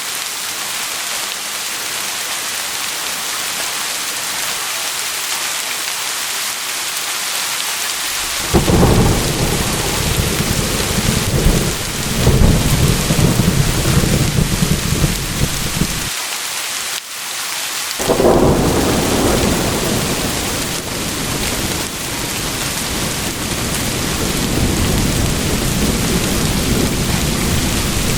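Steady heavy rain hiss throughout. A deep thunder rumble rolls in about a third of the way through and breaks off abruptly; a second rumble follows a couple of seconds later and slowly eases off under the rain.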